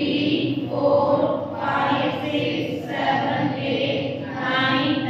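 Voices speaking in long, drawn-out syllables, close to a chant.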